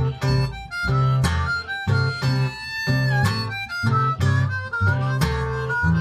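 Blues harmonica playing a lead with bent notes over a strummed acoustic guitar and a washtub bass keeping a steady rhythm of low notes, about two beats a second.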